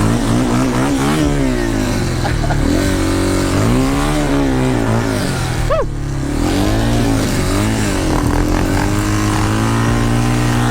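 Dirt bike engines revving up and down while riding, pitch climbing and falling repeatedly through the throttle. A short high chirp cuts in about six seconds in.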